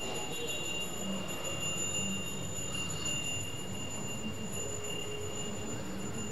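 Steady background room noise with a constant faint high-pitched whine and no distinct events.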